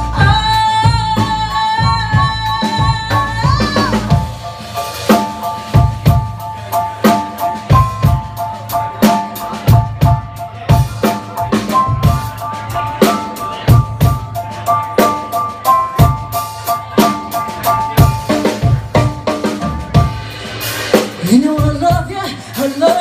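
Live band music: a woman sings a long held high note that bends upward about four seconds in, over a drum kit keeping a steady beat. Sustained melody and drum hits continue, with a rising sung phrase near the end.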